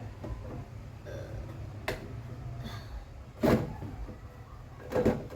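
Plastic fridge shelves and door bins knocking against the fridge as they are slotted back into place. There is a light knock about two seconds in, then two louder thumps about three and a half and five seconds in.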